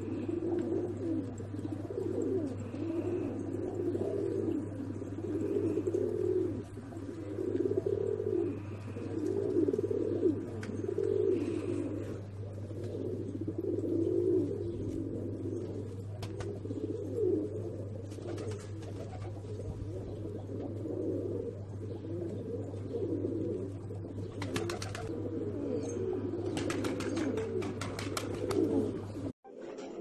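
Iranian domestic pigeons cooing over and over, a new coo about every second, over a steady low hum. Near the end come a few sharp clicks, and the sound cuts off suddenly.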